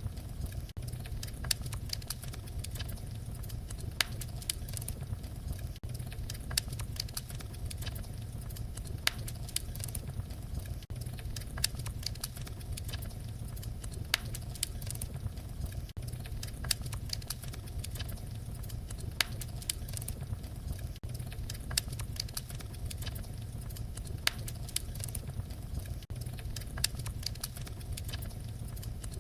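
Wood fire crackling: a steady low rumble of burning with frequent sharp pops and snaps scattered through it.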